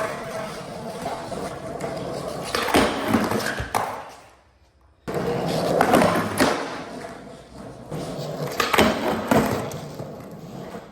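Skateboard wheels rolling, with sharp clacks and scrapes as the trucks and board hit the SlapStick's round metal rail several times. The sound fades out for about a second near the middle and comes back abruptly.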